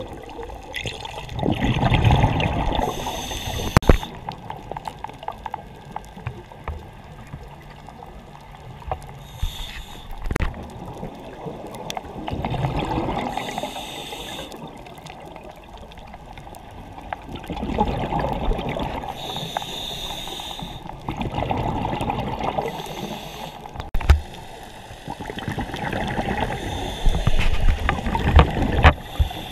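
Scuba regulator breathing heard underwater: a hiss on each inhale and a burst of bubbling exhaled air every few seconds, with a few sharp clicks.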